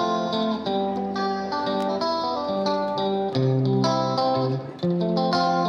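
Background music: a plucked guitar melody with chords.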